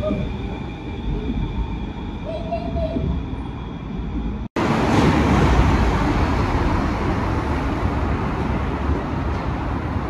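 A tram coming in to an enclosed elevated station platform: a low rumble with steady high whine tones and a brief gliding squeal. About four and a half seconds in, the sound cuts off abruptly and changes to a louder, steady outdoor rush of street noise.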